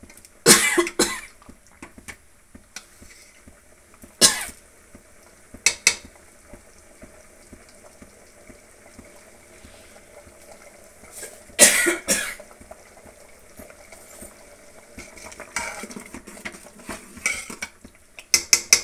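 A steel ladle stirring sambar in an aluminium pot, scraping and knocking against the pot several times over a low steady background. Two of the sharp sounds, near the start and about two-thirds through, are louder and last about half a second each.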